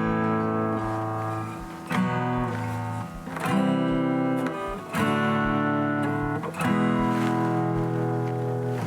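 Freshly restrung and tuned acoustic guitar strummed, a series of chords each left to ring for a second or two before the next strum.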